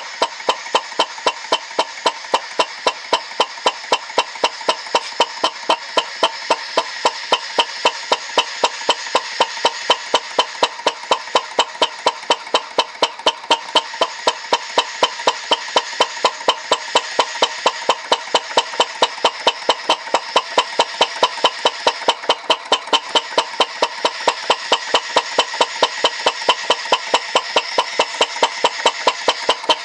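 Alyn Foundry CHUK 2 model engine running steadily, with an even beat of sharp clicks about three to four times a second over a steady hiss.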